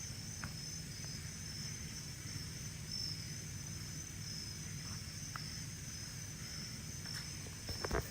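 Night insects, crickets or katydids, chirring steadily in a high-pitched chorus, over a low rumble, with a few faint knocks near the end.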